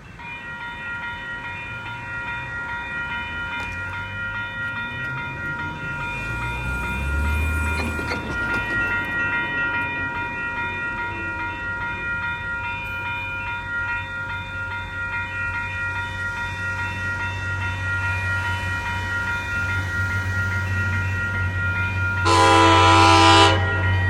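MBTA train passing with a low rumble and a steady set of high tones, building over the first seconds. About 22 seconds in comes one short, loud train horn blast.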